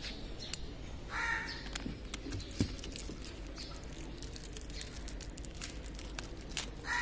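Small clicks and light rustling from handling an LED wedge bulb, its socket and the paper and plastic packaging, with one sharp click a little before three seconds in. A bird calls twice, about a second in and again at the end.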